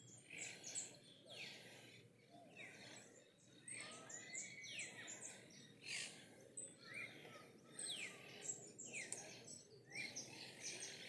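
Birds chirping in short, high calls repeated about once a second over a faint background hiss.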